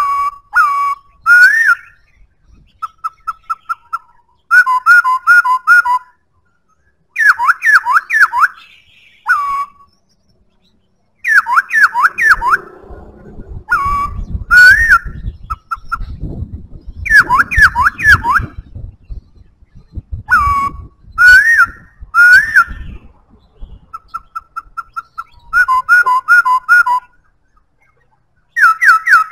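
Black-throated laughingthrush singing loud, clear whistled phrases, each a quick run of three to five repeated notes around 1 to 2 kHz, with pauses of a second or two between phrases and a few softer series of short even notes. A low rumble sits under the song through the middle stretch.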